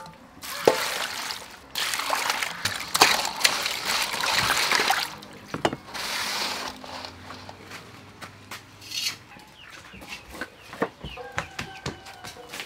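Water poured into an aluminium bowl of raw mantis shrimp, splashing for about four seconds, then a shorter splash as the shrimp are swished in it. A few light knife taps near the end.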